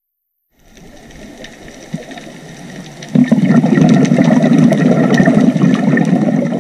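Underwater sound through a camera housing: a faint hiss with scattered sharp clicks, then about three seconds in a loud, low bubbling rumble of a scuba diver's exhaled bubbles.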